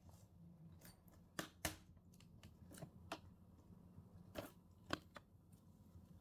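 Faint, irregular clicks and light taps of hands and tools handling an old television's casing during disassembly, about a dozen in all, the strongest about a second and a half in and again past four seconds.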